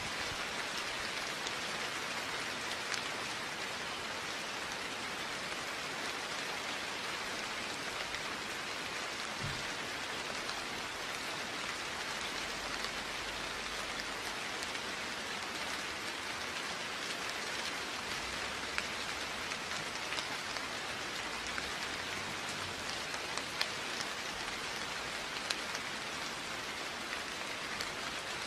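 Steady rain falling, an even hiss with scattered drips and taps of drops on surfaces, and no thunder.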